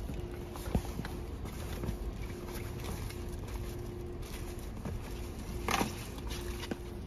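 Fabric rustling and a few sharp clicks and taps as a cloth seat protector is unfolded and spread over a leather car seat, over a steady low background rumble.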